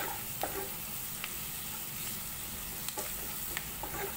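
Chopped onions and capsicum with spice powders sizzling in oil in a non-stick kadai while being stirred with a spatula: a steady frying hiss with scattered light taps and scrapes of the spatula against the pan.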